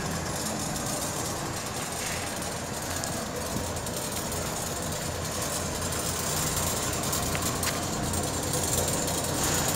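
Isuzu truck's diesel engine running steadily as the truck creeps forward at low speed, getting a little louder toward the end as it comes closer.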